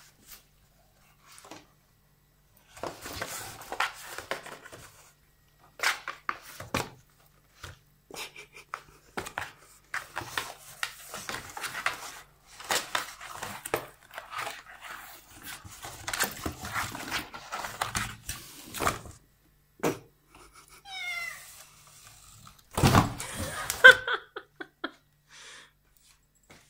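A cat clawing and biting at a cardboard box while a hand tugs at it: irregular bursts of cardboard scratching, scraping and rustling with small knocks. Near the end the cat gives a short yowl, the loudest moment.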